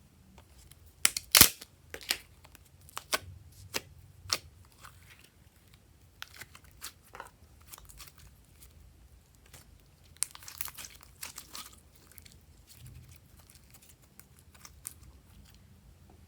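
Close-up crunching and tearing, with a quick string of sharp snaps in the first few seconds and a longer patch of crackling about ten seconds in.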